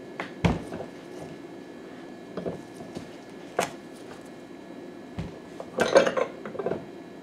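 Metal clinks and knocks from a hand arbor press and an aluminium engine crankcase being set up and worked: a few separate sharp knocks, then a louder rattling clatter about six seconds in as the press handle is pulled to push a ball bearing into the crankcase.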